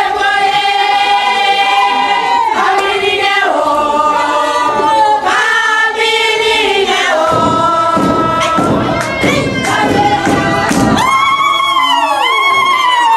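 Crowd of many voices singing together in long held notes, with a tone that slides up and down near the end.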